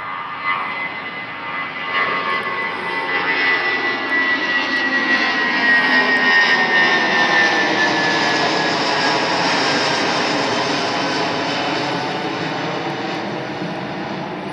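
Airbus A320-family twin-jet climbing out overhead after takeoff: the engine noise builds to a peak about halfway through, then fades as the jet climbs away, with a high whine sliding slightly down in pitch.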